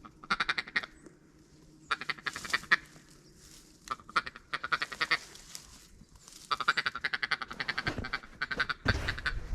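Duck quacking in runs of rapid, repeated quacks, the last and longest run starting about two-thirds of the way in.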